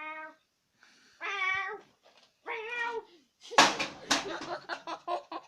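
Three drawn-out meows, each a separate call, the cat's plea to be let in. After them comes a quick run of sharp knocks and taps, the loudest near the middle.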